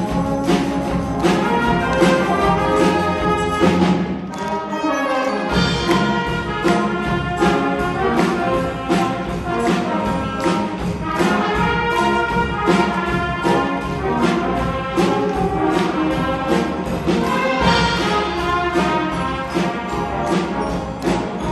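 School brass band playing a piece live, with brass instruments over a steady percussion beat. The low instruments drop out briefly about four seconds in.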